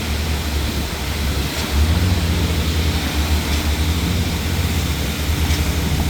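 Heavy diesel engine of a truck-mounted concrete pump running steadily with a deep hum, picking up a little about two seconds in.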